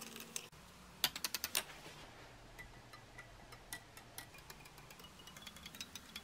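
Plastic spoon stirring drinks in glass tumblers and ticking against the glass: a quick run of clicks about a second in, then lighter scattered ticks with a faint ring from the glass.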